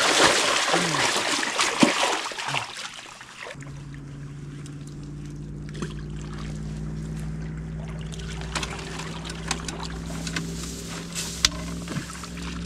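A sockeye salmon thrashing and splashing in a landing net for about the first three seconds. Then a steady low motor drone from a boat on the river sets in, with a few scattered clicks.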